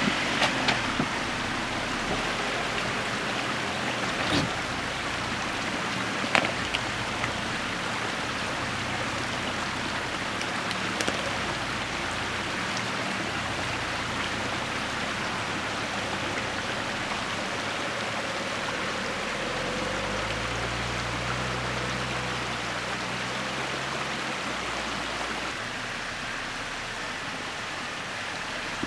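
Steady rush of water in a shallow rocky creek, with a few sharp knocks, a cluster of them right at the start. A low drone from the Jeep Wrangler 4xe comes in about two-thirds through and fades after a few seconds.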